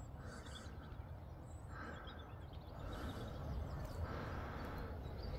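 Outdoor hillside ambience: a steady low rumble, typical of wind on the microphone, with soft swishing sounds about once a second and faint bird chirps.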